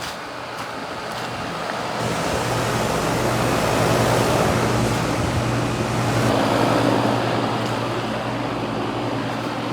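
Outdoor heat pump unit running: a steady low hum with the rush of its fan air, growing louder about two seconds in.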